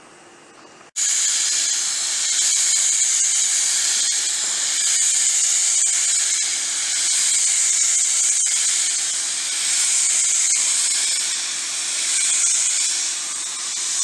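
Hose-fed spray gun hissing loudly and steadily as it sprays steel pipes, starting abruptly about a second in.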